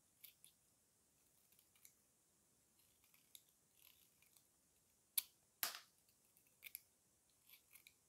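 Utility knife blade cutting into a bar of dry soap: a series of short, crunchy scrapes, with two louder cuts a little over five seconds in.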